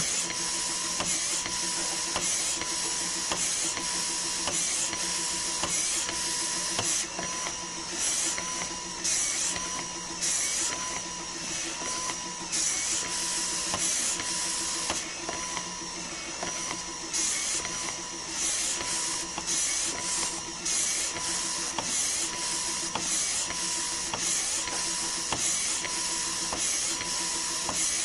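Electric breast pump running through its suction cycle: a steady motor hum with a rhythmic hiss of air and a short click-tone repeating about once a second.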